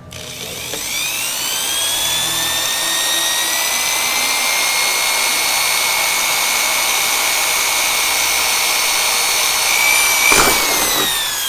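Electric drill with a small bit drilling a starter hole: the motor whine rises as it spins up, runs steadily under load, and winds down near the end after a sharp knock.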